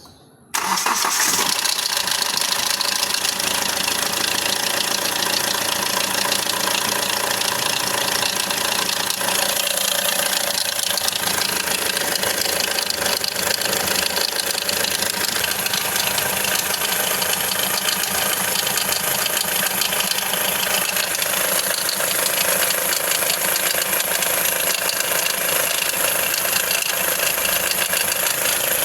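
Hyundai Accent CRDi diesel engine running steadily with a clattering knock, coming in abruptly about half a second in. The noise is the one the owner puts down to a loose timing chain, a common problem on this engine.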